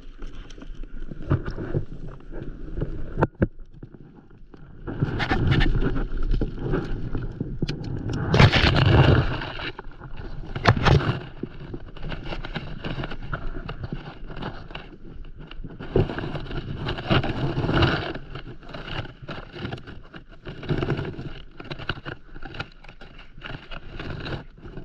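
Rope being handled and tied off to a seaweed-covered post from a paddleboard: irregular rustling and scraping, with a few sharp knocks.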